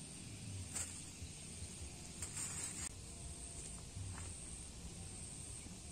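Outdoor forest ambience: a steady high-pitched insect hiss, with a few brief rustles. The longest rustle comes about two seconds in and lasts under a second.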